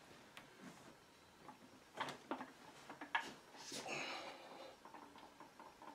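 Light knocks and clunks of the 47RH transmission's cast overdrive housing being picked up and handled, with a cluster of knocks about two to three seconds in, then a brief metallic scrape as it is lifted onto the main case.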